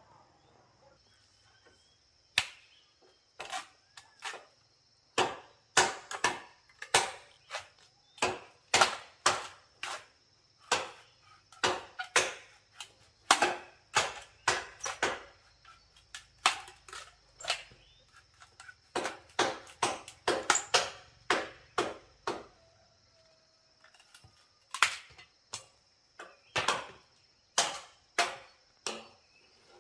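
Repeated sharp chopping strikes at an uneven pace of about two a second, starting a couple of seconds in, with brief pauses between runs.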